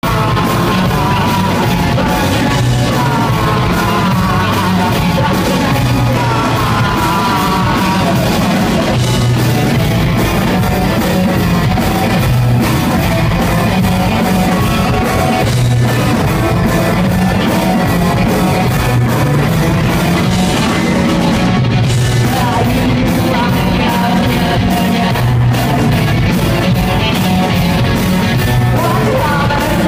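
Live rock band playing loud and continuous, with electric guitar, drums and a male lead singer.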